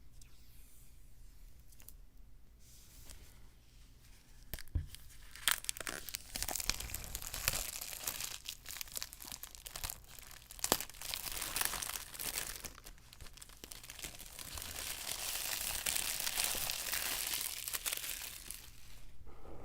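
Packaging being torn open and crinkled, with a few sharp clicks. It starts about five seconds in after a quiet stretch and swells into a longer continuous tear near the end.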